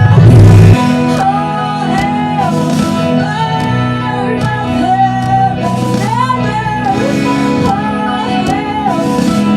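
Live worship band playing, with a sung melody over sustained low notes and guitar, and a heavy low hit in the first second.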